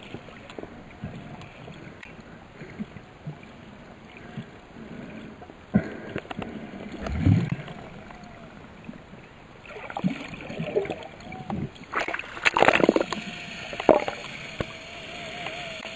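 Underwater sound while snorkelling with dolphins: bubbling and splashing in bursts, with a few short wavering tones near the end.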